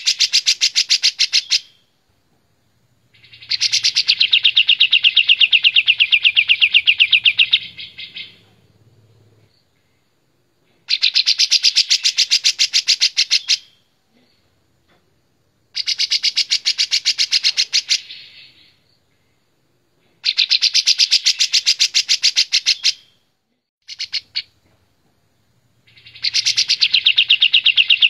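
Caged kapas tembak bulbul singing loud, fast trills of rapidly repeated notes in bursts of about two to four seconds, with short pauses between them.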